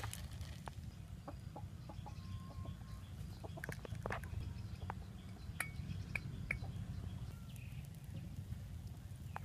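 Chickens clucking in the background, with scattered sharp clicks and taps over a steady low rumble.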